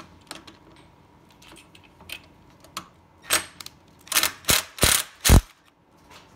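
Cordless Milwaukee driver backing out a screw in a series of loud short bursts in the second half, after a few light clicks of the tool being set on the screw head.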